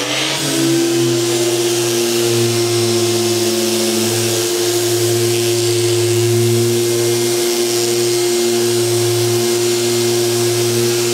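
Electric orbital sander with a dust-extraction hose spins up over the first second, then runs steadily as a hum over a hiss. It is sanding dried joint finisher on drywall with 220-grit paper.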